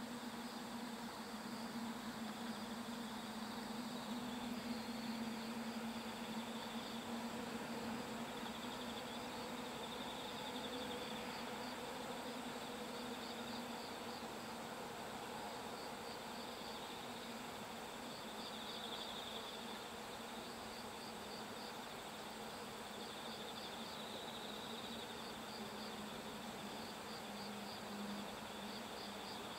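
Insects chirping outdoors: a high, rapid, steadily repeated chirping runs throughout over a low steady hum.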